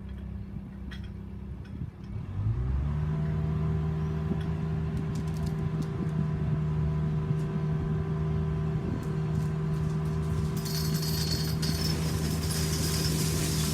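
A heavy engine running, which speeds up and gets louder about two and a half seconds in, then holds a steady higher speed; a high hiss joins near the end.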